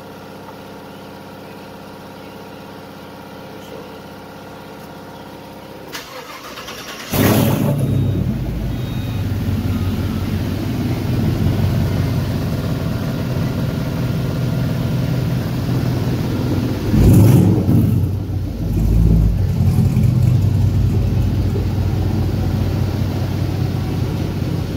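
A swapped-in V8 in a G-body Chevrolet El Camino starting up about seven seconds in and settling into a steady idle, with one brief rev about ten seconds later.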